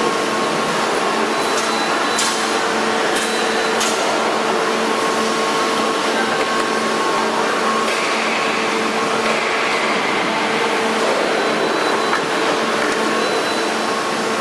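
Injection moulding machine running with its crate mould clamped shut: a steady machine drone with hiss and a constant hum. A few sharp ticks come about two to four seconds in.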